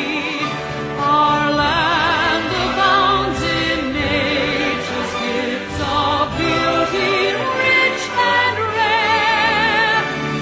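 A national anthem sung by a choir, the voices held with wide vibrato over sustained accompaniment.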